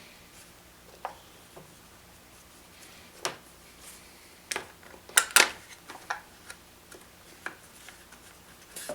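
Scattered light clicks and knocks as parts of an electric chainsaw are handled and fitted together during its repair, with two sharper taps about five seconds in.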